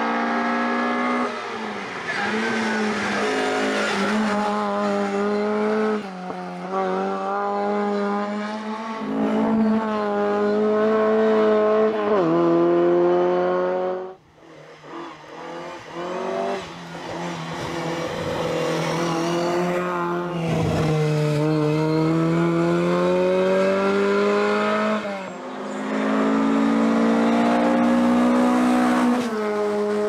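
Ford Escort Mk1 RS2000's 1998 cc four-cylinder engine at full racing throttle. Its pitch climbs and drops sharply at each upshift, several times over. The sound cuts out abruptly about halfway through, then comes back and again rises and falls through the gears.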